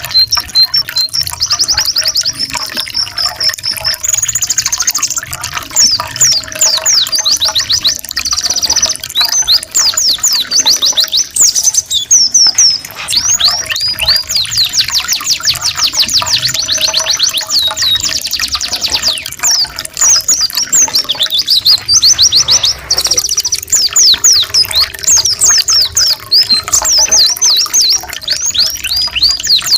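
Canaries and white-eyes singing: a fast, continuous string of clear chirps and rapid trills, each run of repeated notes switching to a new pattern every second or two. A trickling-water sound effect runs underneath.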